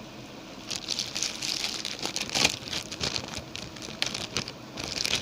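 Packaging crinkling and rustling as an Akai MPK Mini keyboard is unwrapped, in irregular crackly bursts that start under a second in and are loudest about halfway through.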